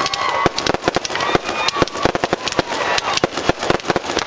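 Aerial fireworks going off in quick succession: a dense, rapid string of sharp pops and crackles as shells launch and burst.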